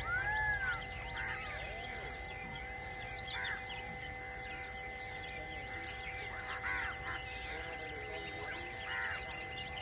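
Forest bird chorus: many birds chirping and calling in short, repeated notes and arching calls, over a few steady held tones.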